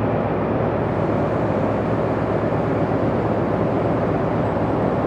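Steady low rumble of a train at the station platform, even in level throughout.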